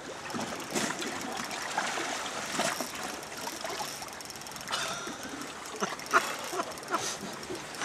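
Sea water sloshing and splashing irregularly against a boat's hull in a light swell, with a few small knocks.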